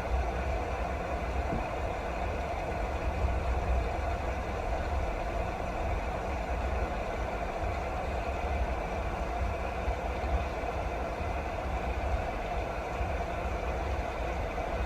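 Steady rain noise with a deep, even rumble underneath, unchanging throughout.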